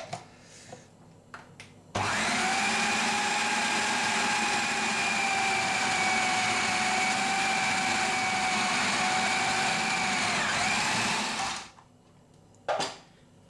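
Food processor motor running with a steady whine for about ten seconds, mixing pastry crumbs and egg until the dough starts to come together, then switching off. A single sharp click follows about a second later.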